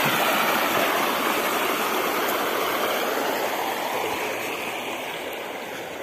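Small creek waterfall: water rushing steadily over a rock slab, growing gradually quieter.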